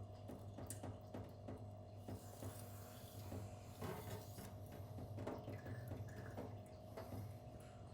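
Knife edge drawn lightly along a wet 1000-grit silicon carbide whetstone in repeated short, muted scraping strokes, over a steady low hum. These are light burr-minimizing passes, made because a burr can still be felt on the edge.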